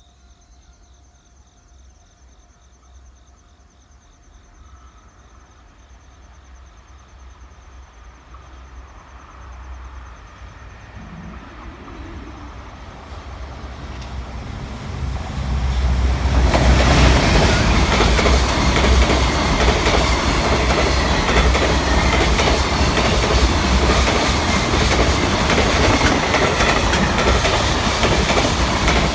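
Freight train hauled by an EF510 electric locomotive approaching and passing at speed. The rumble builds steadily for about 15 seconds, then turns suddenly loud as the train reaches the spot, with the steady clatter of wagon wheels over rail joints.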